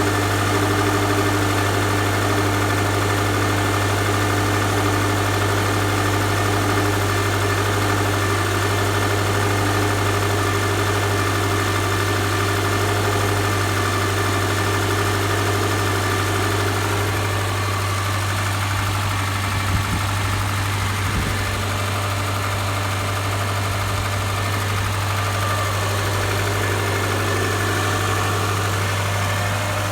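Subaru boxer engine idling steadily while still cold. The owner finds it very loud and is asking what is knocking.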